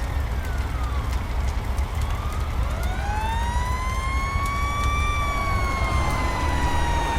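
Fire engine siren wailing: the tone rises over a few seconds, peaks about five seconds in, then slowly falls. Under it run a steady low rumble and the scattered crackle of a house fire.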